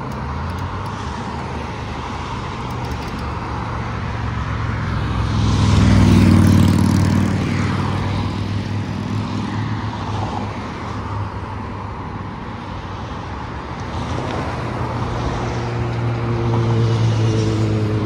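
Road traffic running steadily, with one vehicle passing loudest about six seconds in and engine drone rising again near the end.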